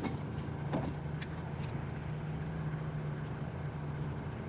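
Small boat motor running steadily with a low hum, with a few faint clicks in the first second or so.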